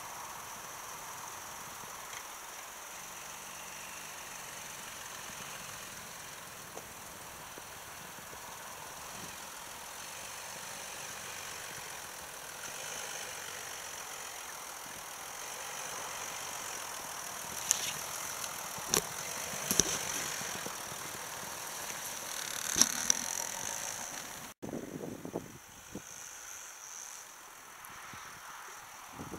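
The 3.0 TDI V6 diesel engine of an Audi A6 Allroad quattro running as the car drives slowly through deep snow. There are several sharp clicks about two-thirds of the way through, and the sound changes abruptly near the end.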